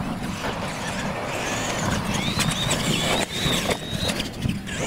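Radio-controlled monster trucks racing on a dirt track: the electric motors and gears whine, the pitch rising and falling with the throttle, over the rumble of the tyres.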